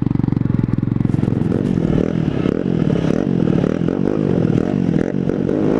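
125cc motorcycle engine running while riding, through a newly fitted, heat-wrapped exhaust; its pitch wavers up and down, then rises steadily as it accelerates near the end.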